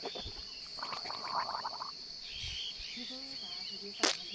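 A mouthful of water spat out in a spray, a single sharp loud burst about four seconds in. A steady high drone of crickets runs underneath.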